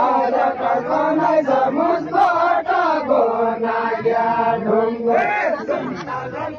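Large group of men chanting together in many overlapping voices, with long held notes.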